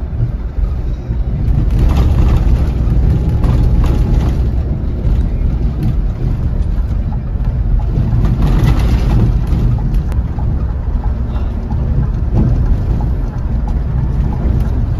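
Bus on the move: a steady, loud low rumble of engine and road noise, with hissing swells about two seconds in and again around eight to nine seconds in.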